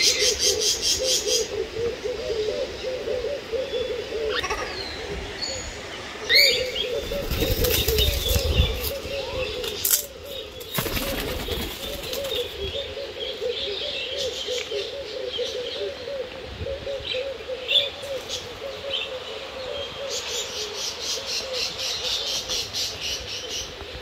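Mixed bird calls: a low, wavering cooing goes on throughout, with brighter chirps and rapid high trills near the start and near the end. A burst of wing flapping comes about a third of the way in.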